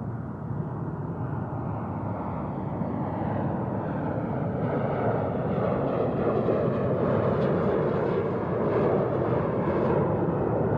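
Airplane engine noise and rush, a steady roar without a distinct pitch, growing steadily louder and brighter as the aircraft approaches overhead.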